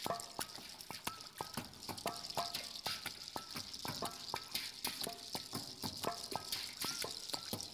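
Water poured in a thin stream from a ladle into a metal bucket of water: a steady hiss of falling water with a dense, irregular patter of plinking drops, many with a short upward-rising pitch.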